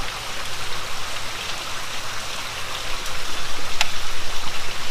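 Rain falling steadily, an even hiss, with one sharp tick about four seconds in.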